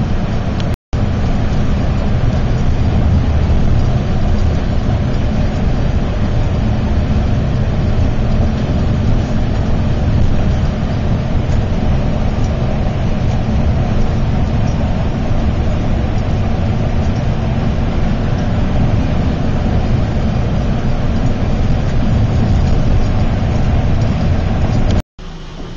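Loud, steady rumble of a bus on the move heard from inside the cabin: engine and road noise. The sound cuts out for an instant about a second in and again near the end.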